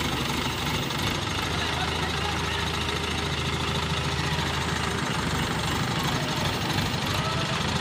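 Diesel engine of an ACE pick-and-carry hydraulic mobile crane idling steadily, a low even drone with no change in speed.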